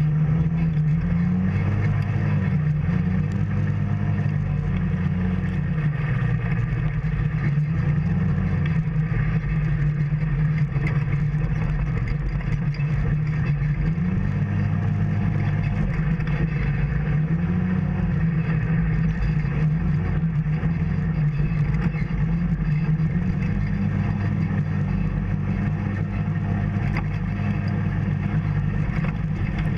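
Off-road vehicle's engine running steadily at low speed, its pitch rising and falling a little every few seconds as the throttle varies.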